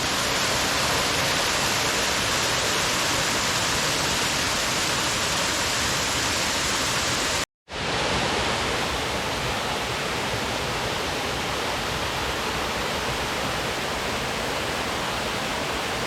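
Waterfall, a steady, even rush of falling water. It cuts out abruptly for an instant about seven and a half seconds in, then carries on slightly quieter.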